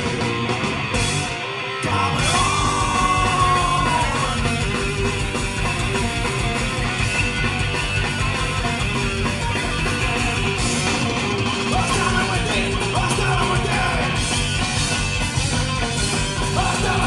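Live punk band playing loud through a PA, heard from the audience: distorted guitars, bass, drums and shouted vocals. The drums and bass drop out briefly just before two seconds in, then the full band comes back in.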